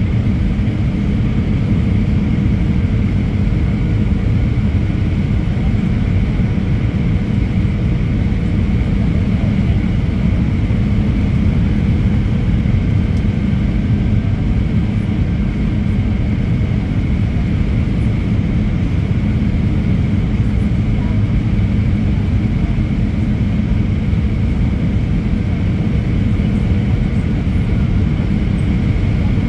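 Steady cabin noise inside an Airbus A320 on approach: a constant low rumble of jet engine and airflow, with a faint steady whine above it.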